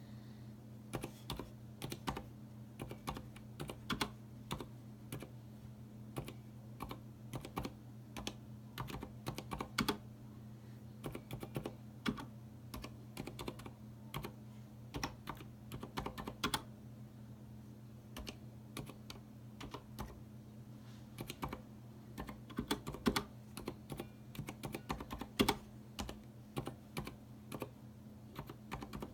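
Typing on a Leopold FC900R full-size mechanical keyboard with Cherry MX Silent Red linear switches and PBT keycaps. Keystrokes come in irregular bursts with short pauses, over a steady low hum.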